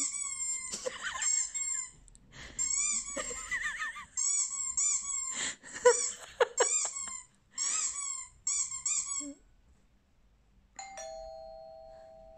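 Repeated high-pitched squeaks in quick runs of three to five, with a few sharp knocks among them, played through a laptop speaker. About eleven seconds in, a two-tone ding-dong doorbell chime rings out and slowly fades.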